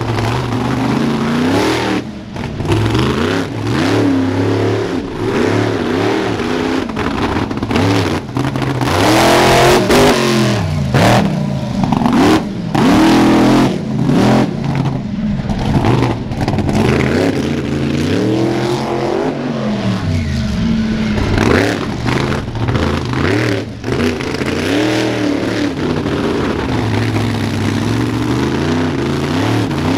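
Monster truck engine revving hard and falling back over and over as the truck drives and turns on dirt, its pitch climbing and dropping many times.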